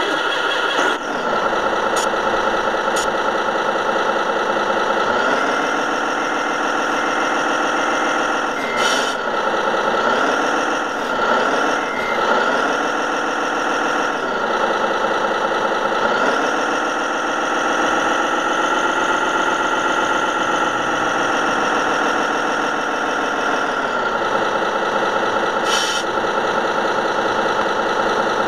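RC model truck's simulated diesel engine sound, idling and revving up and down as the truck drives: the pitch rises about five seconds in, wavers up and down a few times, stays raised for several seconds and then drops back to idle.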